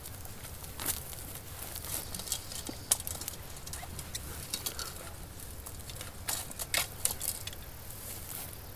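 Tall grass and leaves rustling as they are brushed and pushed aside: a run of short, crisp crackles over a low steady hum.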